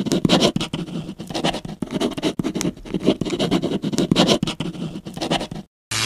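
Pen scratching on paper in quick, irregular strokes, like rapid drawing. It cuts off suddenly near the end, and after a brief silence a steady low hum begins.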